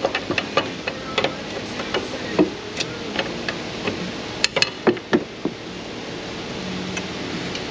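Irregular metallic clicks and knocks of a pry bar being worked against the steel suspension parts, levering the upper control arm down toward the steering knuckle. About a dozen strikes over the first five seconds, the loudest few clustered around four and a half to five seconds in, then they stop.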